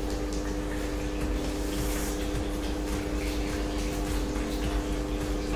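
Food sizzling in a frying pan on an electric cooktop while a spoon stirs it, with a steady hum underneath.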